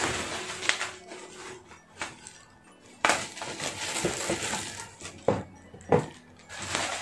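Bubble wrap and a plastic bag rustling and crinkling as a wrapped helmet is lifted and turned. Several sharp crackles stand out, the loudest two about a second apart near the end.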